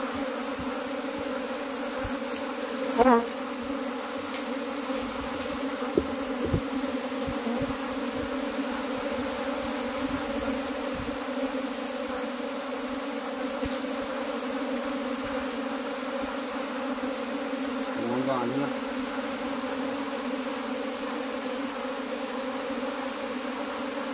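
A large mass of honey bees buzzing steadily as one dense drone. Twice, about three seconds in and again near eighteen seconds, a louder buzz with a wavering pitch cuts in briefly.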